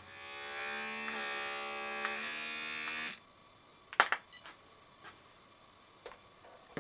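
Small electric air pump of a scale RC air-ride suspension buzzing steadily for about three seconds, then cutting off. A few light clicks follow, with a sharper click near the end.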